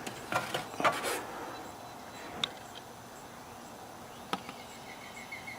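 A few light clicks and knocks from the microwave being opened and the watch handled. From about four and a half seconds in there is a faint, fast, high chirping, about five chirps a second.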